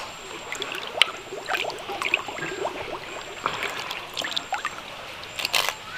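Water splashing and dripping in short irregular bursts as small fish are taken by hand from a bucket of water and released into a shallow pond.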